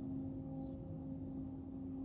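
Steady industrial hum attributed to the GM Milford Proving Grounds: one low droning tone with fainter overtones above it, over a low rumble.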